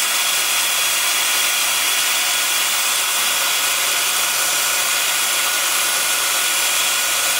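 Cordless drill spinning a white abrasive pad on a Velcro sanding disc, pressed against a Red Mallee burl bowl turning on the lathe, smoothing the final coat of shellac. It makes a steady motor whine over the hiss of the pad rubbing the wood.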